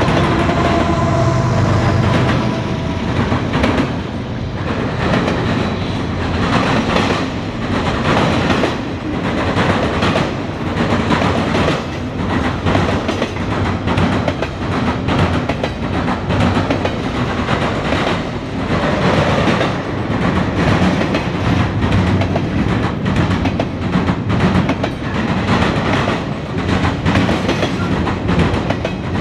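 Norfolk Southern double-stack intermodal train passing close by: two mid-train distributed-power diesel locomotives go by with their engines running for the first few seconds. Then the loaded container well cars roll past with a steady rumble and the repeated clickety-clack of wheels over rail joints.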